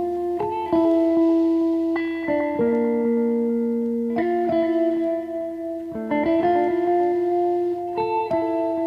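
Background music: a plucked guitar playing sustained notes and chords that change about every two seconds.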